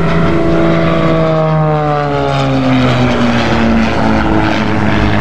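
CAP 232 aerobatic plane's six-cylinder Lycoming piston engine and propeller running at high power overhead. The engine note falls in pitch over the first three seconds, then holds steady at the lower pitch.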